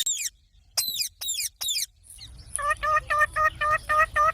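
Rose-ringed (Indian ringneck) parakeet calling: a few sharp, high calls falling in pitch, then from about halfway a quick, even run of about nine short calls, roughly four a second.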